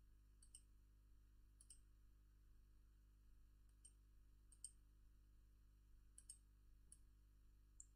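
Faint computer mouse clicks, about eight single clicks spaced irregularly, against near silence.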